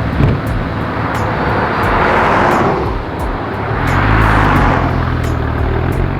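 2005 Porsche 911 Carrera S's flat-six engine running on the road with tyre and road noise. Two swells of rushing noise peak about two and four seconds in.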